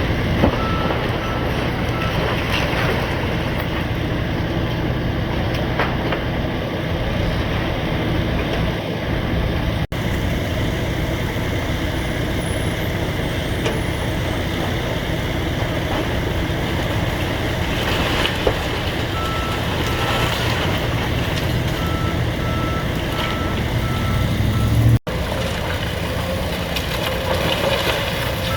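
Excavator diesel engines running steadily, with a backup alarm beeping in short runs and occasional knocks and crashes of demolition debris.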